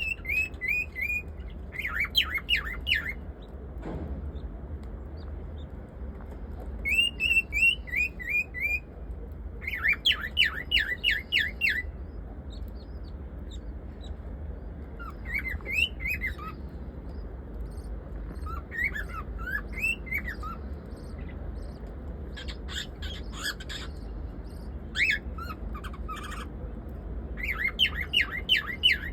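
Small birds chirping and squawking in repeated bursts of quick, sharply pitched notes, with pauses of a second or more between bursts.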